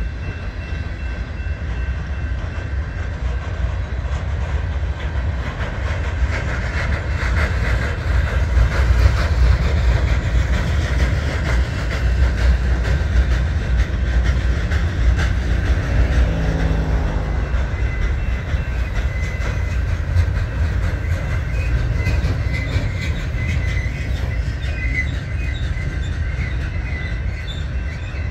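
Loaded freight train flatcars rolling past close by: a steady low rumble of steel wheels on the rails with clickety-clack over the joints. Near the end, thin high squeals come from the wheels.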